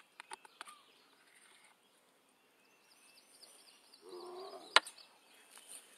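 Food-aggressive bobcat feeding on wet cat food from a wooden bench. It makes wet eating clicks early on and gives a short low growl about four seconds in, followed at once by one sharp click.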